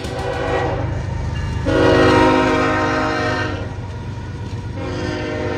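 Union Pacific diesel freight locomotive's multi-note air horn sounding in three blasts: a softer one at the start, a louder, longer one about two seconds in, and another near the end, over the steady low noise of the passing train.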